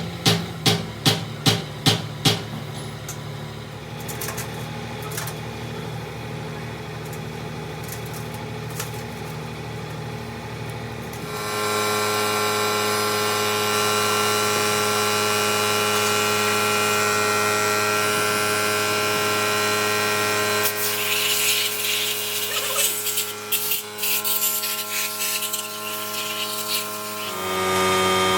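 A quick, even run of hammer blows, about three a second, then a power tool's motor running steadily. Its pitch shifts about eleven seconds in, and rough scraping noise from the tool working the metal comes in and out for several seconds near the end.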